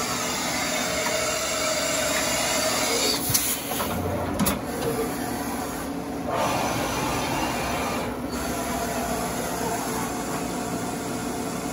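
1997 Mazak VTC-30C CNC mill running under power: a steady machine noise with a few held tones. A few short clicks and clunks come about three to four and a half seconds in, and a brief swell about six seconds in.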